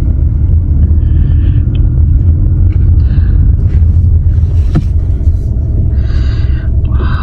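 A loud, steady low rumble, with a short exclamation near the end.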